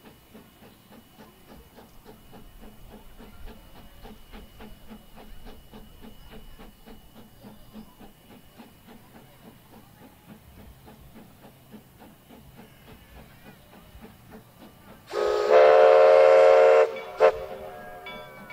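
Monson Railroad No. 3, a two-foot-gauge steam locomotive, working along with its train, its exhaust beats steady and faint. Near the end it sounds its steam whistle: one long blast of about two seconds, then a short toot.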